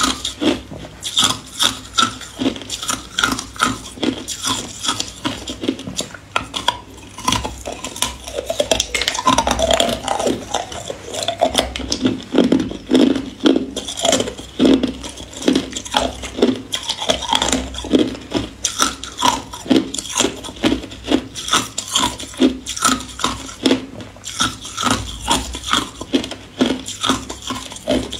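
Small round ice balls being bitten and chewed close to the microphone: a rapid, unbroken run of sharp cracks and crunches, with ice clinking against ice as clusters are broken off a silicone mould.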